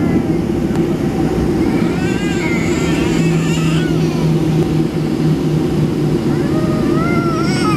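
Cabin noise of a Boeing 737 taxiing on idling jet engines: a loud, steady low rumble. A high voice, like a young child's, rises and falls over it twice, about two to four seconds in and again near the end.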